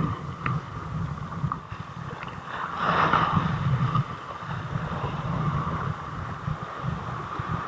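Sea waves breaking and washing over shoreline rocks, with wind buffeting the microphone; a louder surge of splashing water comes about three seconds in.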